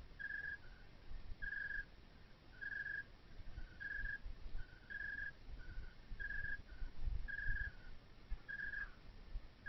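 A high whistled two-note call repeating about once a second, a steady note followed by a shorter, slightly lower one, over irregular low rumbles and thumps.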